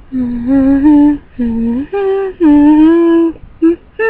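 A girl singing a tune unaccompanied, in several phrases of long held notes with short breaks between them.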